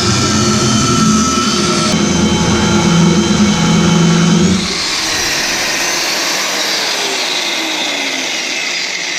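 Angle grinder with a well-worn cutting disc running and cutting through the steel knife blade of a shear grab. About halfway through the low drone drops away, leaving a high whine that slowly falls in pitch.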